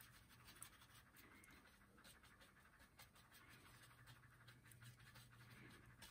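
Near silence: faint scratching of an oil-paint brush blending on a linen panel, over a low steady hum.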